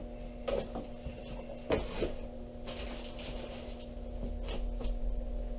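Light knocks and scrapes of a boxed ammunition packet being handled and set down on a table: one knock about half a second in and two close together near two seconds in, over a steady hum.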